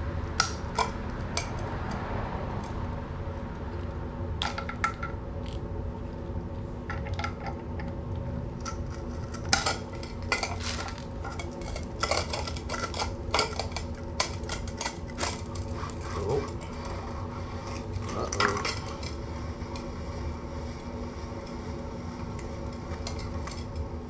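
Metal hand tools clinking and tapping against metal parts, many sharp irregular clicks, over a steady hum.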